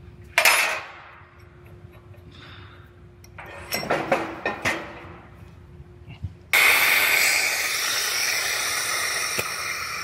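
Heavy steel frame-rack clamp parts clanking as they are handled. About six and a half seconds in, a loud, steady hiss of compressed air starts suddenly and carries on: a pneumatic bellows air jack under the car being worked.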